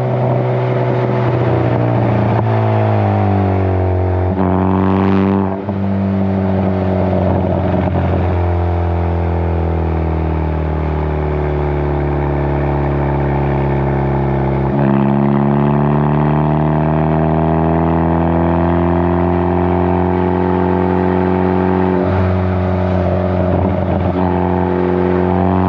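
2015 Ford Focus ST's turbocharged 2.0-litre four-cylinder breathing through a Hooker Blackheart 3-inch stainless catback exhaust, heard from behind the tips while driving. The exhaust note sinks slowly for about ten seconds as the car eases off, with a brief whoosh about five seconds in, then climbs steadily as it accelerates again.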